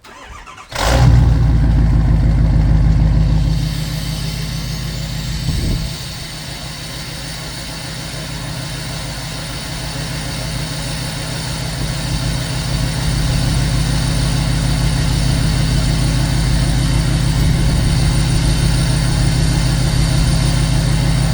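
Ford 6.7 Power Stroke V8 turbodiesel in a 2011 F250 cold-starting: it catches about a second in and runs at a loud fast idle. After about three and a half seconds it settles to a steady diesel idle, while a high whine rises and then holds.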